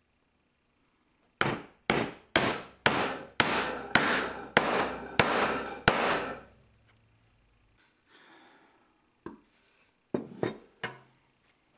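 A hammer striking wood: about ten evenly spaced blows, roughly two a second, each ringing briefly, followed by a few lighter knocks near the end.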